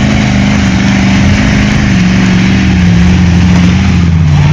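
Lifted Ford pickup truck's engine running loud and steady while pulling out a broken-down truck, its pitch sagging slightly lower near the end.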